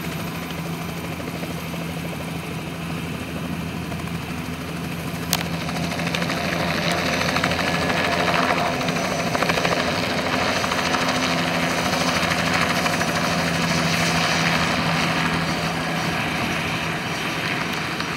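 Bell 206B JetRanger helicopter lifting off: its turbine and two-blade main rotor run steadily, growing louder about six seconds in as it rises into the air. A single sharp click about five seconds in.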